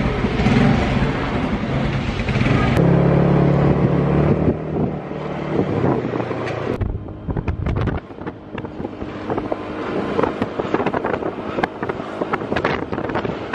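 Small motorcycle engine running, its note changing about three seconds in as the bike pulls away. From about seven seconds in, wind buffets the microphone as the bike rides along.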